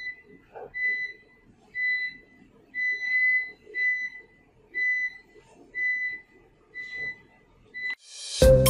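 An electronic beeper sounding a short, steady, high-pitched tone about once a second, nine times. Near the end a rising whoosh leads into a bright jingle with mallet-percussion notes.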